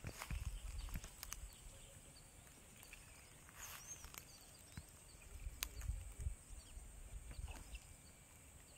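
Footsteps through dry grass and scrub, with a few sharp clicks and faint bird chirps.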